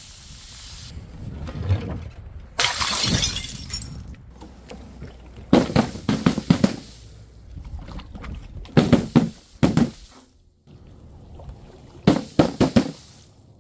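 Glass bottles shattering in about four separate bouts of sharp crashes, each followed by a brief scatter of breaking pieces.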